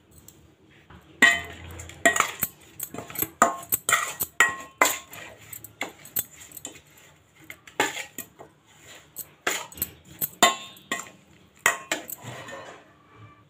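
A metal spoon clinking and scraping against a stainless steel bowl in quick, irregular strokes while tossing fish pieces in a dry spice marinade, starting about a second in.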